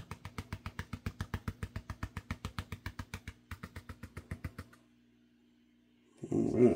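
Rapid, even tapping and sloshing, about eight or nine strokes a second, from a plastic gold pan being shaken in a tub of water to clean up the concentrate; it stops about two-thirds of the way in, and a short louder handling sound follows near the end.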